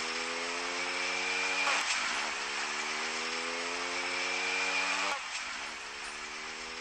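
Suzuki Hayabusa's inline-four engine accelerating through the gears: its pitch rises steadily, drops at an upshift about two seconds in, climbs again, and drops at a second shift about five seconds in.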